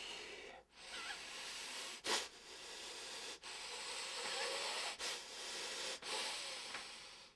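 A man blowing long breathy hisses through pursed lips, about six in a row, each about a second long with brief breaks between.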